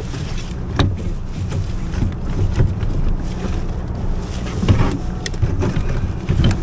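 Steady low rumble of wind and sea on an action camera's microphone, with a few scattered clicks and knocks from handling crabs and net on the kayak.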